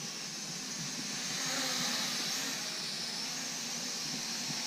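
Small Asbww GPS quadcopter drone in flight in its fastest mode, its propellers giving a steady high whirring hiss that swells slightly about two seconds in.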